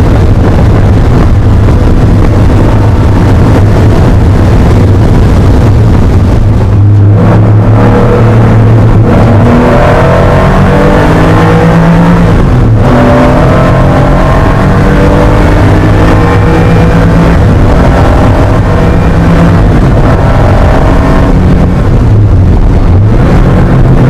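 Air-cooled 3.0-litre flat-six engine of a 1980 Porsche 911 SC race car, heard loud from inside the cabin under hard acceleration. The engine note climbs through the revs, drops briefly at two gear changes and climbs again.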